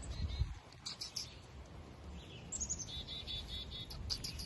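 Small wild birds chirping: short high calls scattered throughout, with a rapid run of repeated notes about three seconds in.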